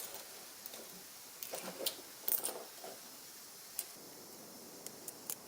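Scattered light clicks and taps of parts being handled during work in the car's engine bay, with a cluster of louder knocks and rustles about one and a half to three seconds in.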